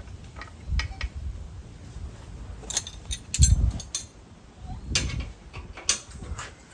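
Irregular sharp metal clicks and a few dull knocks, the loudest about three and a half seconds in, as a jack and wooden post are worked under the lathe bed to take load off the tailstock end.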